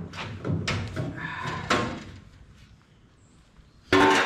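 Cut sheet steel of a VW Beetle's rear wheel well being pulled and flexed loose by hand, scraping and rattling for about two seconds. Near the end comes a loud, sudden metal bang.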